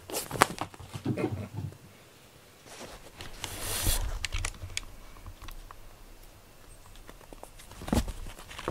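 Cats playing with a string toy: quick scratching and scrabbling of paws on a quilted fabric mat, a rustle around four seconds in, and a soft thump near the end as a cat moves across the floor mats.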